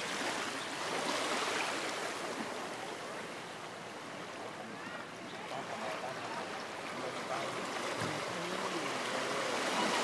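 Shallow sea water washing and lapping as small waves roll in around a wading child's legs: a steady rushing wash that swells and eases.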